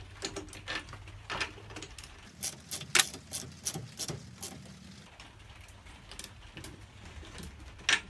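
Hand ratchet clicking in short, irregular runs while tightening a 22 mm fitting on a fuel lift pump clamped in a bench vise, with the metal clinking of the socket on the fitting. The clicks bunch together about midway, with another sharp click near the end.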